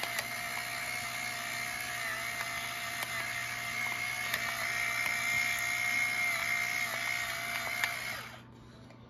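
Electric pepper mill grinding black peppercorns: a steady motor whine with faint ticks, cutting off about eight seconds in.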